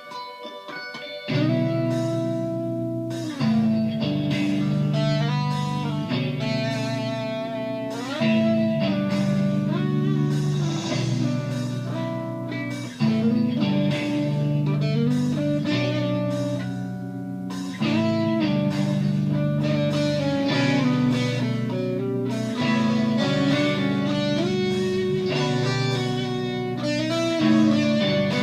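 Electric guitar, a Warmoth Telecaster with a Seymour Duncan Little '59 pickup, played through distortion: held chords and riffs that come in about a second in.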